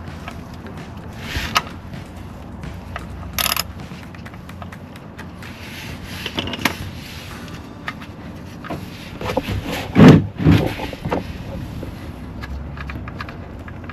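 Scattered scrapes, clicks and clunks of hand tools and metal parts being worked under the car, as the oil drain plug is put back and tightened. The loudest clunks come about ten seconds in.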